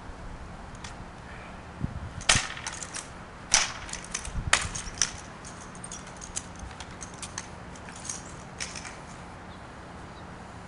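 Drill rifle being spun and caught in the hands: sharp smacks and clatters start about two seconds in and come several times over the next three seconds, followed by lighter taps.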